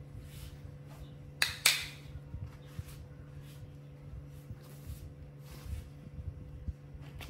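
A china plate set down on a tile floor: two sharp clacks about a second and a half in, with a brief scrape, then faint small handling ticks over a steady low hum.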